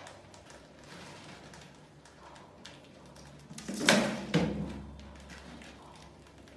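The cardboard see-saw lid of a bucket rat trap tipping down into the plastic bucket and swinging back level, two loud thumps against the bucket about half a second apart, around four seconds in: the trap being triggered.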